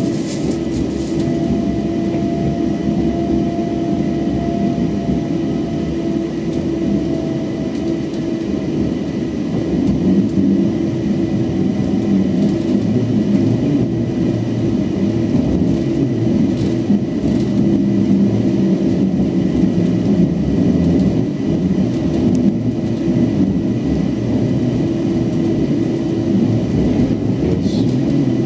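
Running noise inside a CAF AM-class electric commuter train under way: steady wheel-on-rail noise with a few steady humming tones from the electric drive, one of which dips slightly in pitch over the first several seconds. It gets a little louder about ten seconds in.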